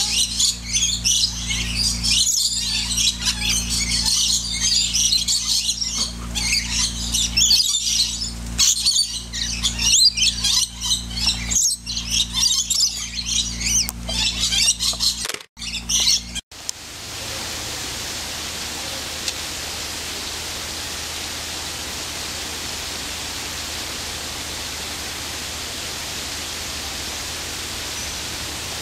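Many birds chirping and chattering densely over a steady low hum. About sixteen seconds in, this cuts off and gives way to a steady, even rushing noise with no calls.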